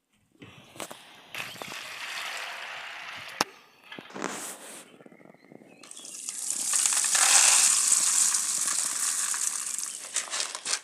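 Water splashing and pouring as dry beans are rinsed in a sieve, in a few separate goes, the loudest and longest pour swelling and fading over the second half.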